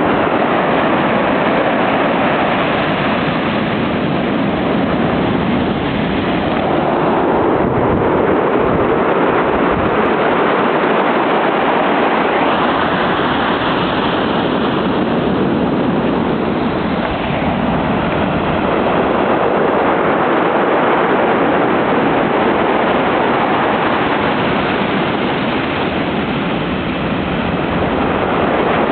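Pacific surf breaking and washing up the beach in a continuous loud rush that swells and eases slowly, with wind buffeting the microphone.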